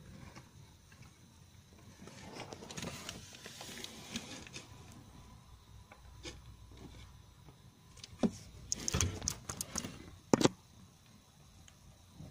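Rubbing and scraping handling noise, then a cluster of sharp clicks and knocks about two-thirds of the way through, one of the last being the loudest.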